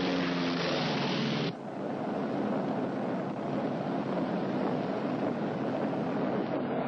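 Twin-engine airplane's engines droning with a steady pitched hum. About a second and a half in it cuts to a steady, noisy rush of engine and wind as the plane flies low.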